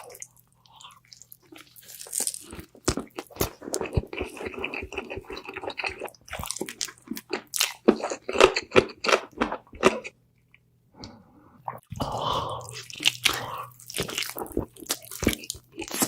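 Close-miked mukbang eating sounds: crunchy bites and chewing in a dense run of sharp crunches, with a brief pause about two-thirds of the way through.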